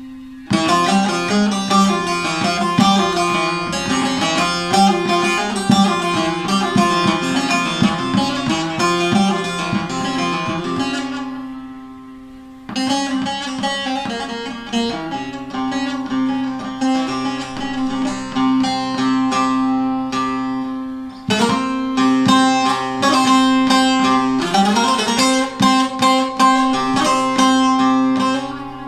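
Deep-toned davudi bağlama with a 43 bowl, tuned A–C#, playing a Barak havası: fast picked melody over a steady ringing drone string. The playing stops for about a second and a half near the middle, then resumes with a short break about two-thirds of the way through.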